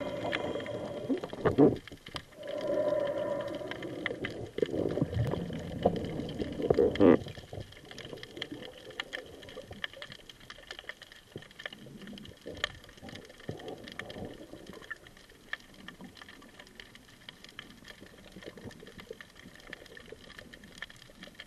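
Underwater sound picked up through a camera's waterproof housing. For the first seven seconds or so there are irregular knocks and rumbles with a brief hum, then a quieter, steady crackle of faint clicks.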